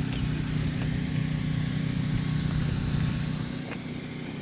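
A small engine running at a steady speed, a constant low drone that eases slightly near the end.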